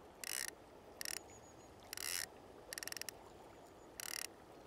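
Centrepin reel's ratchet check clicking in five short bursts while a hooked fish is played, one burst a run of distinct rapid clicks. Steady river rush underneath.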